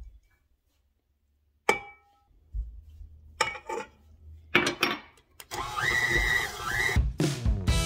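Kitchen mixing sounds: one sharp clink of a utensil against a dish with a short ring, then irregular scraping and knocking as a still-dry batter is stirred with a little water. A louder continuous sound takes over from a bit past halfway.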